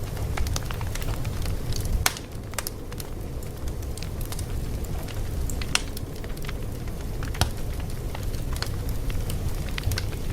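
Fire crackling: a steady low rumble of flames with irregular sharp pops and snaps scattered throughout.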